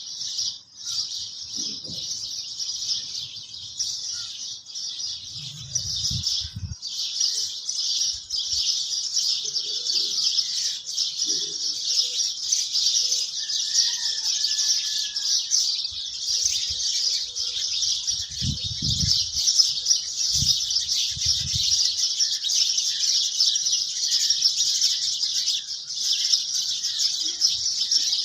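A steady, dense chorus of high-pitched chirping that carries on unbroken throughout.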